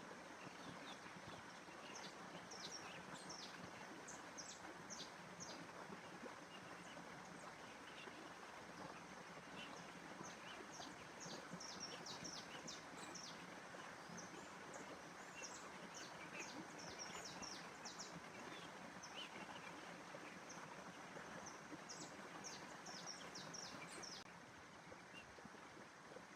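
Faint outdoor nature ambience: small birds chirping in quick clusters of short, high notes over a steady soft hiss.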